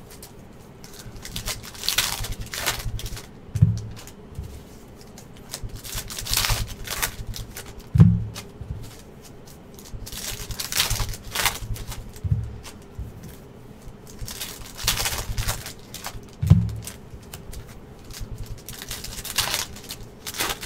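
Trading-card packs being torn open and handled: a crinkling, tearing burst every four or five seconds, with a short knock on the table between each.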